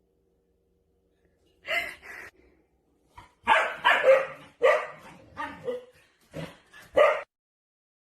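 A dog barking: a string of about nine short barks, starting a little under two seconds in and ending about seven seconds in.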